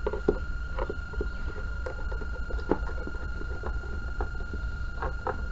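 Scattered small clicks and knocks of a screwdriver and hands working at the plastic back cover of a CRT TV, loosening its screws. A steady high whine and a low hum run underneath.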